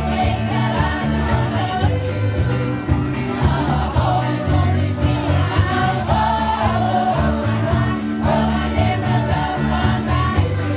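Mixed choir singing a pop song in harmony, amplified through a stage PA, with low bass notes held under the melody.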